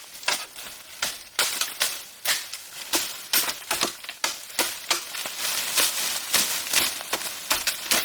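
Irregular sharp clicks and knocks, a few a second, light and crisp rather than heavy thuds.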